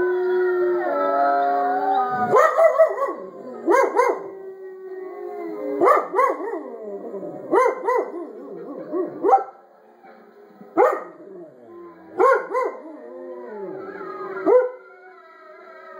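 A dog howling along with a wolf pack. The dog gives short, loud howls and yelps every second or two over the wolves' long, overlapping howls, which come through a TV speaker.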